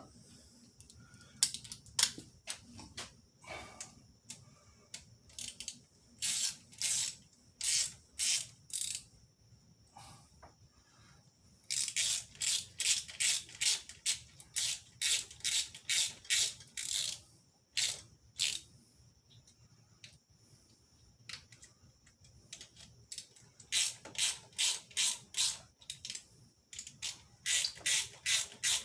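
Small hand ratchet driving down rocker arm bolts: spells of quick clicking back-strokes, about two to three a second, broken by short pauses.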